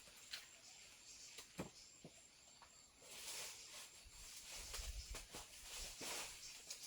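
Faint handling noise: a few soft knocks, then rustling from about three seconds in, with a low rumble near the middle.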